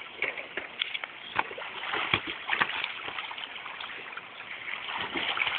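Pool water splashing and sloshing as a dog swims, with irregular small splashes and crackles over a steady wash of water.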